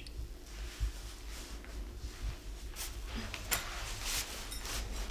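Quiet rustling and a few short hissing swishes in the second half, the strongest about three and a half seconds in, from a large ink-laden calligraphy brush being lifted from the ink pot and pressed onto the paper. A low steady hum lies underneath.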